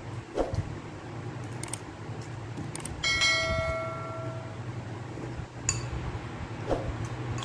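A chime sound effect rings once about three seconds in and dies away over a second and a half: the bell of a subscribe-button animation. A few light clinks of cutlery against a bowl come before and after it.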